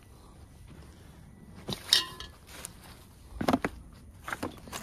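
Hand rummaging through a pile of junk and plastic bags: a few scattered knocks, clinks and rustles of objects being moved, the sharpest about two seconds in.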